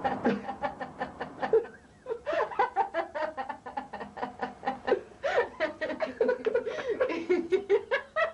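Laughter in quick short bursts, pausing briefly about two seconds in and then going on.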